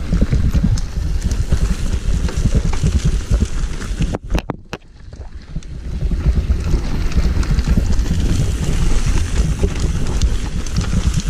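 Trek Remedy mountain bike riding fast down a dirt forest trail: steady rumble and rattle of tyres and frame over the ground, with wind buffeting the camera microphone. About four seconds in the noise suddenly drops away for about a second and a half after a few sharp clicks, then comes back.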